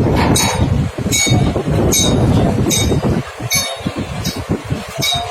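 Truck reversing alarm giving short high beeps about once every 0.8 seconds over a loud, continuous low rumble.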